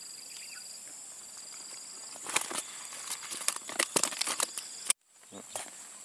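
Steady insect chirping, then from about two seconds in a burst of crinkling and rustling as a nylon mesh keep bag in a bucket is handled to put a caught fish in; it cuts off suddenly near the end.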